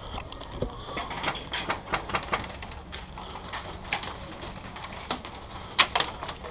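Airsoft guns firing: scattered sharp clicks and snaps at irregular intervals, a few in quick runs, with the loudest shot near the end.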